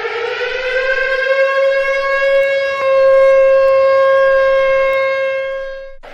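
Civil defense siren winding up, its pitch rising over the first couple of seconds, then holding a steady high wail that fades and cuts off near the end.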